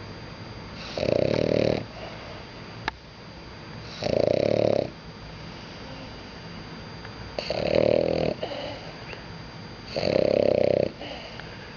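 French bulldog snoring in its sleep: four loud snores, each under a second long, about every three seconds.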